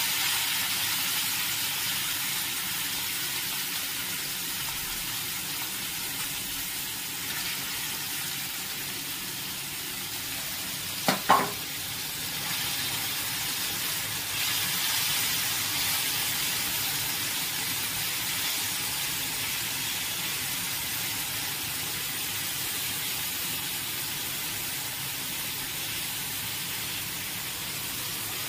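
Small pond fish frying in hot mustard oil in a blackened iron pan, a steady sizzle, stirred with a steel spatula. About eleven seconds in come two sharp knocks close together.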